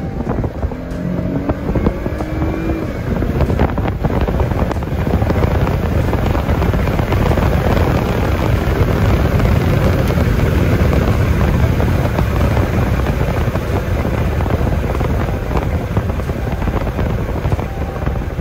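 A car being driven, its engine, tyre and wind noise heard from inside the cabin, growing louder over the first several seconds and then holding steady.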